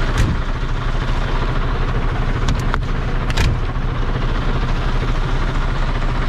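Truck's diesel engine idling steadily with its compressor switched on, with a few short knocks and clicks near the start and around the middle.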